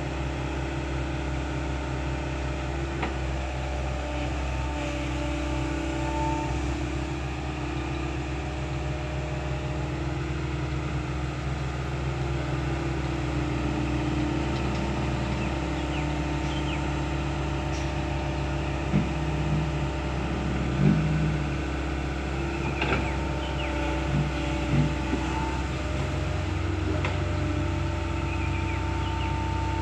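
Kobelco hydraulic excavator's diesel engine running steadily while it works, with higher tones that come and go as the boom and bucket move. Several sharp knocks in the second half.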